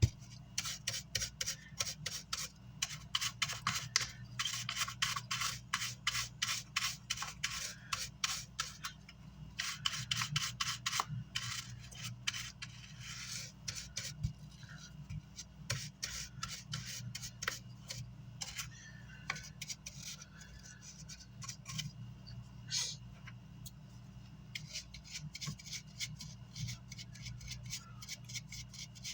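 Brush scrubbing a car amplifier's circuit board clean, quick scratchy strokes in runs with short pauses, over a steady low hum.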